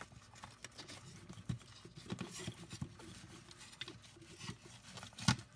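Light, irregular plastic clicks, taps and rubbing from fingers handling the opened ear-cup housing of a pair of wireless headphones, with one louder knock near the end.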